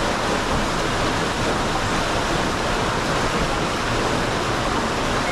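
Water rushing steadily: an even, unbroken hiss.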